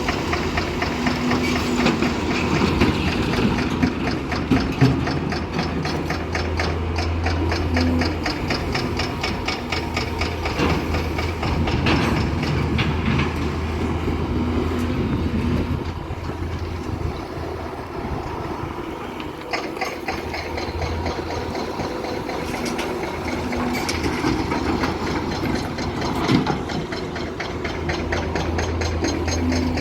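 Large hydraulic excavator's diesel engine running steadily, with a rapid metallic clatter over its low drone and the engine note dipping and rising a few times.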